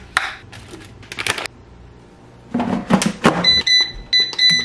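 Digital air fryer's control panel beeping as its buttons are pressed: about five short high beeps in the last second or so. Before them, irregular clattering and scraping from handling the food and basket.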